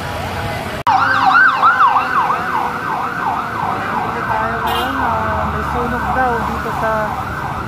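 Fire truck siren in a fast yelp, about three rising-and-falling sweeps a second, over a low engine rumble. It cuts in abruptly about a second in, after a moment of street traffic noise.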